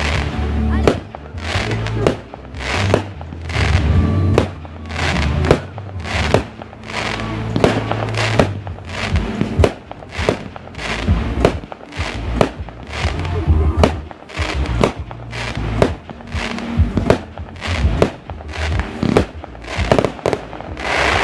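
Aerial fireworks going off in a rapid, continuous barrage: sharp bangs and cracks one or two a second over a low rumble of booms, with music playing alongside.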